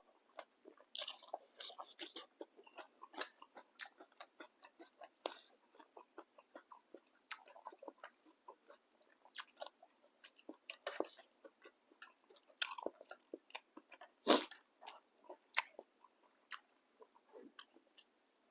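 A person eating a bowl of boat noodles close to the microphone: irregular chewing and wet mouth clicks, with a few louder short bursts, the loudest about 14 seconds in.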